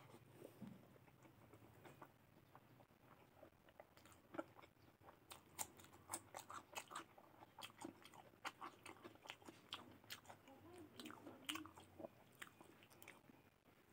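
Close-up chewing and crunching of raw cucumber with rice and mutton curry: a quick run of crisp crunches that grows busier from about four seconds in.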